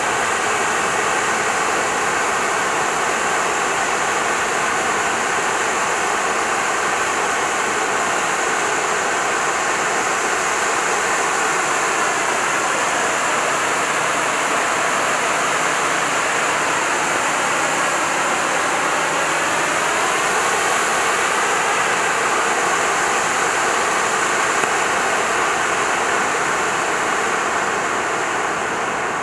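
Black Cat Titanium Fountain ground firework burning: a steady, loud hiss from its jet of sparks, beginning to fade near the end as the fountain burns out.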